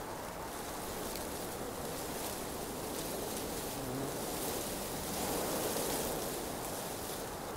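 Outdoor wind: an even rushing hiss with a low rumble, swelling a little about five to six seconds in.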